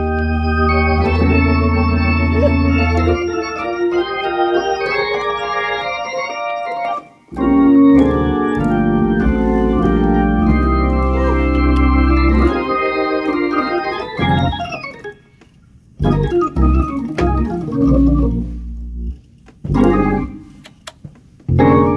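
Hammond organ played in Detroit COGIC gospel style: full sustained chords over deep bass notes, with a brief break about seven seconds in. In the last third the playing turns into short punched chords with gaps between them.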